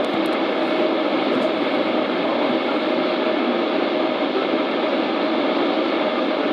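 Steady hiss of weather radio static, with a faint steady tone in it.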